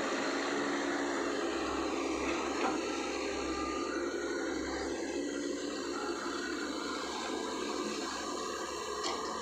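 Heavy diesel earthmoving machinery running steadily, a dense even mechanical noise, with a sharp knock near the end.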